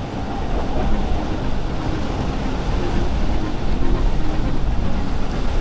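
Pershing motor yacht running at speed: steady engine noise mixed with the rush of its wake, with wind on the microphone.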